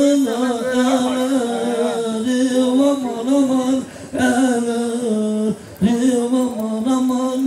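A man singing solo into a handheld microphone, with long held notes and ornamented melodic turns. He breaks off briefly twice, about four and five and a half seconds in.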